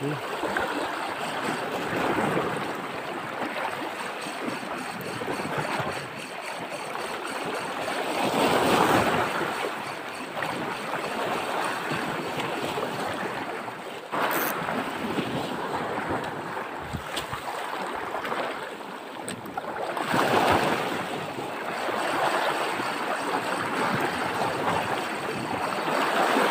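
Small sea waves washing and lapping against the rocks at the water's edge, swelling in surges a few seconds apart.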